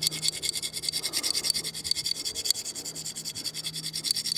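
A penny scraped rapidly back and forth along the rusty blued-steel magazine tube of a Marlin Model 60 .22 rifle, an even scratchy rubbing at about eight strokes a second, lifting the rust off the finish.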